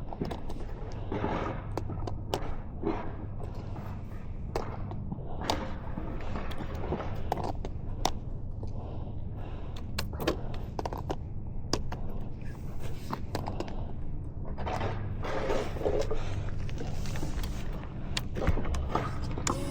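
Heavy breathing close to the microphone, in repeated swells, with scattered knocks and thumps over a steady low hum.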